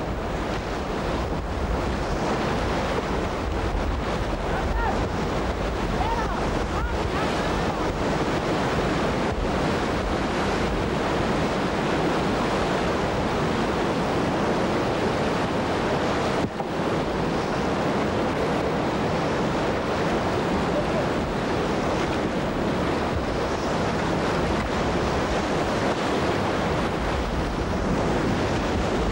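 Whitewater river rapids: a steady rush of churning water, with wind buffeting the microphone. The sound dips briefly about 16 seconds in.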